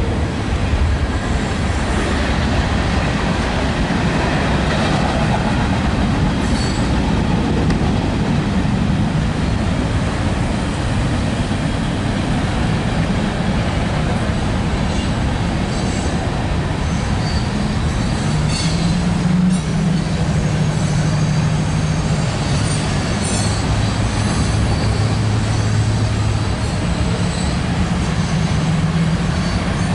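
Freight train cars rolling steadily past, the wheels rumbling on the rails. A low steady hum joins in the second half.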